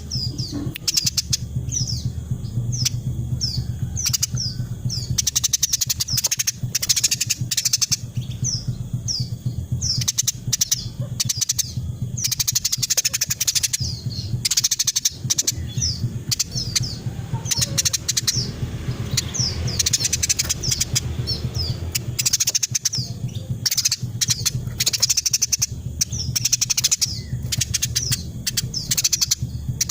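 Female Eurasian tree sparrow calling in a fast, unbroken string of short, high, downward-sliding chirps, several a second, the dense 'rapet' chatter used as a tutor recording for songbirds. A steady low hum runs underneath.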